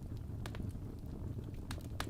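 Wood fire in a fireplace burning with a steady low rumble, and logs crackling with a few sharp pops, the loudest about half a second in and near the end.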